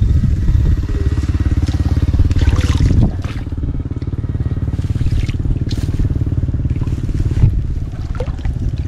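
A small engine running steadily, a little quieter after about three seconds.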